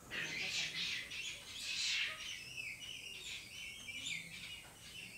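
Birds chirping in a quick, irregular chatter, loudest about two seconds in.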